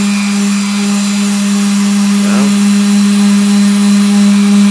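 Electric palm sander running with a steady, even hum while sanding with 200-grit paper.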